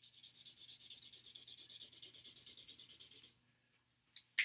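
Yellow felt-tip highlighter rubbed quickly back and forth over a word on chart paper: a scratchy run of many short strokes that stops a little past three seconds in. A few sharp clicks follow near the end.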